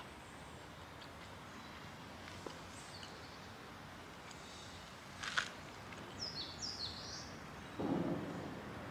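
Faint outdoor forest ambience with a bird giving a few short high chirps about six to seven seconds in. There is a sharp click a little after five seconds and a short, dull low noise near the end.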